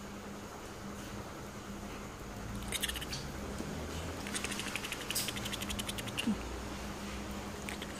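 Kittens scrabbling at a wand toy on a cloth bedspread: scratchy clicks of claws and toy on the fabric, a short flurry about three seconds in, then a fast run of about ten clicks a second lasting a couple of seconds. A faint steady low hum runs underneath.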